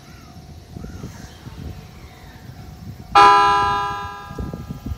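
A single loud, ringing signal tone starts suddenly about three seconds in and dies away over about a second, over a low rumble that grows near the end as the electric train gets ready to pull out.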